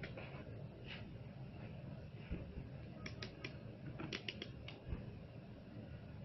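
A few light clicks and taps, scattered, with a cluster of quick clicks a little past the middle, over a low steady background rumble.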